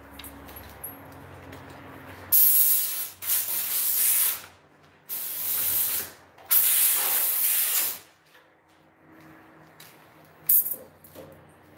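Compressed-air blow gun on an air hose giving four hissing blasts of about a second each, then a short one near the end.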